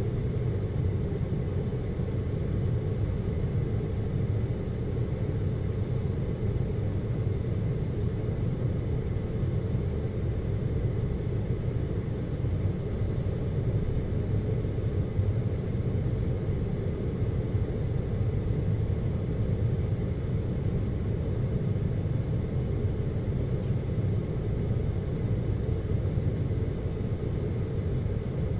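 Steady low rumble of a cable car cabin travelling along its cable, heard from inside, with a faint, steady high whine above it.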